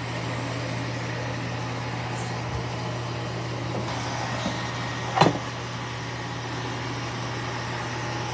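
eufy C28 robot vacuum and mop combo running close up, a steady motor and suction hum while it vacuums and mops the floor, with one short sharp sound about five seconds in.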